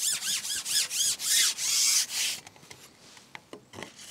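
Carbon fishing pole being shipped out, its sections sliding and rubbing as they are pushed forward: a quick series of rasping strokes and then one longer slide, stopping about two and a half seconds in. A few light clicks follow near the end.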